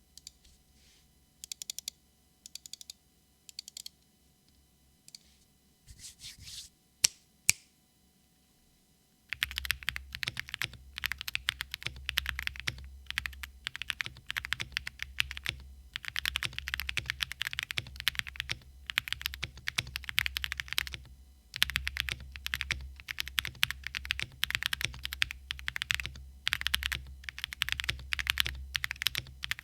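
Zoom TKL mechanical keyboard with lubed and filmed NovelKeys Cream linear switches on an FR4 plate being typed on. First come a few scattered keystrokes and two sharp, louder clacks. From about a third of the way in there is continuous fast typing, with a brief pause about two-thirds through.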